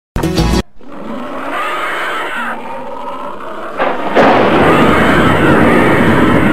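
A sudden loud hit, then a steady, dense rumbling noise that grows louder about four seconds in, like a vehicle or explosion sound effect.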